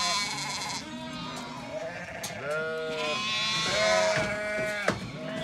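Sheep bleating, several separate calls one after another, with a single sharp knock near the end.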